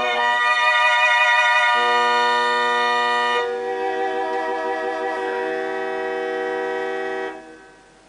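Music of slow, sustained held chords, the chord changing twice, ending about seven seconds in and dying away.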